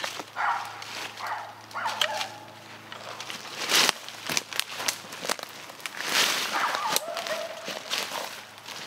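Dogs barking a few times, mixed with the crackle and rustle of brush and dry leaves as saplings are cut with long-handled bypass loppers and dragged out; the loudest are two brief crunching bursts near the middle.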